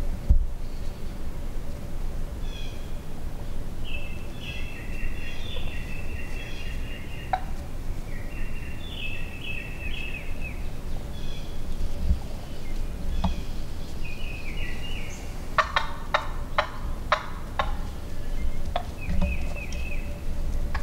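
Wild turkeys calling in several short runs of quick, high yelping notes. About three-quarters of the way through comes a string of sharp clicks or taps.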